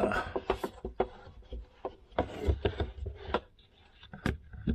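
Irregular knocks, taps and rubbing as a plastic carboy is handled and moved, with one sharp knock near the end.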